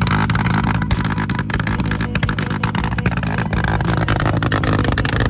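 Yamaha R15's 155 cc single-cylinder engine idling through a full-system aftermarket exhaust, with a rapid, irregular crackle of backfire pops from the tailpipe. This is the backfire trick: after a full-rpm rev, the ignition switch is flicked off and on, so unburnt fuel ignites in the exhaust.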